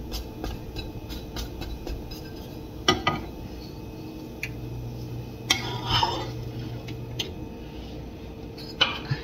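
Spatula clicking and scraping against a nonstick frying pan while a pancake is worked loose and lifted out. A run of light taps comes first, then a few sharper knocks and clatters about three, six and nine seconds in.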